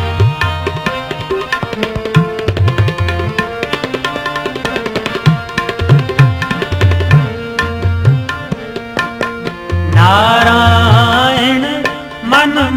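Devotional shabad music: tabla plays a steady rhythm under an instrumental melody. About ten seconds in, a singer's voice enters.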